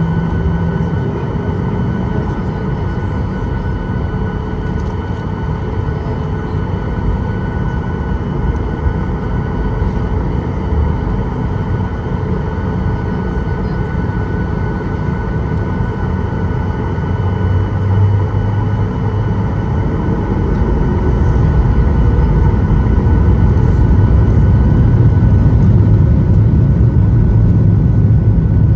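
Boeing 737-800's CFM56 jet engines heard from inside the cabin: a steady low rumble with a steady whine on top, getting louder and deeper about two-thirds of the way through.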